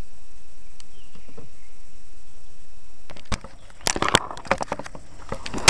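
A steady low rumble that drops away about three seconds in, followed by a run of sharp knocks and clicks, the loudest near the end.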